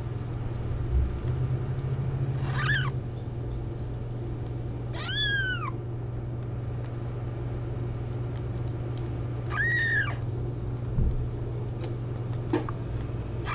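Newborn kitten mewing: three short, high-pitched cries a few seconds apart, each rising and then falling in pitch, with a fourth beginning near the end.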